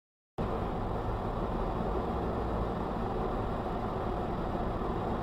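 Complete silence, then about half a second in a steady car engine and road noise cuts in abruptly, as picked up by a dash camera inside a car moving in traffic.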